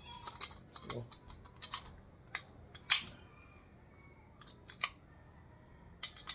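Scattered sharp clicks and knocks of an AR-7 .22 rifle's metal receiver and magazine being handled against its hollow plastic stock, the loudest about three seconds in.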